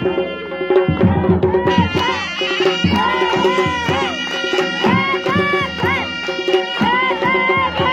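Traditional Gilgiti dance music: drums beating a steady rhythm under a wavering, ornamented melody.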